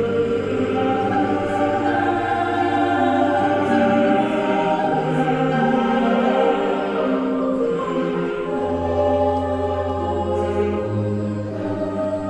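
Music: slow, sustained chords over a held low bass note. The bass drops out about four seconds in, returns lower at about eight and a half seconds, and moves up again near eleven seconds.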